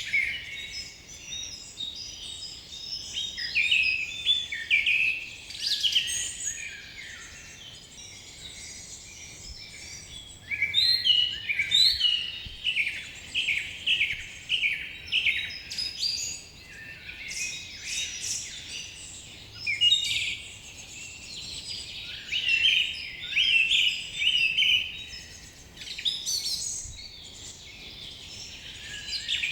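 Several songbirds singing and chirping at once in a busy forest chorus, with quick runs of repeated high, slurred notes coming in bursts and a brief lull a third of the way in.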